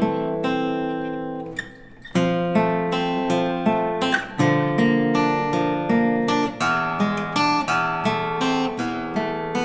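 Acoustic guitar played fingerstyle: a plucked melody over bass notes. About a second and a half in, the notes ring out and fade, then the playing picks up again.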